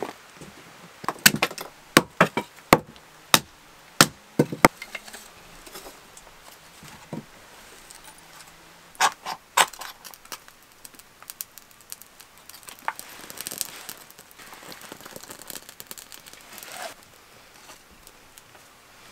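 About eight sharp wooden knocks in the first five seconds, then two more a few seconds later. After that comes a stretch of soft crackling as a kindling fire of wood shavings and thin sticks catches.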